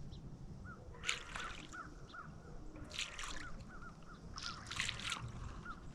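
Birds calling by the water: a harsh, rasping call comes about four times, over a steady run of short, high peeps several times a second, with low wind rumble beneath.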